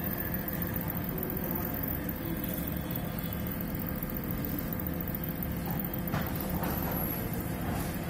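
LG MH3948W microwave oven running a test heat with a new magnetron fitted: a steady electrical and mechanical hum.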